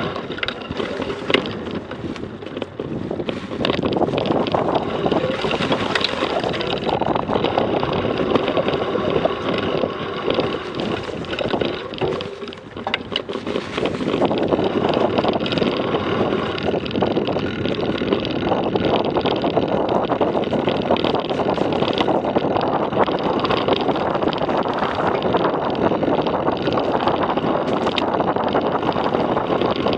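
Steady rumble of a ride over rough off-road ground, with wind buffeting the microphone. It drops away briefly about twelve seconds in.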